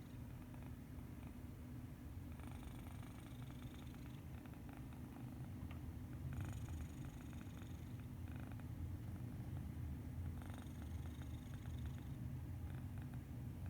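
Domestic cat snoring in its sleep: a steady low rumble, with a breathy hiss on the breaths recurring every few seconds.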